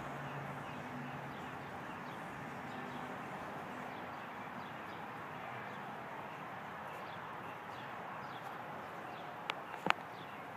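Steady outdoor background noise with faint, short high chirps scattered through it, and two sharp clicks close together about a second before the end.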